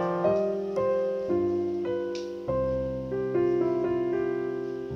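Background piano music: a slow melody of single notes, each struck and left to ring and fade.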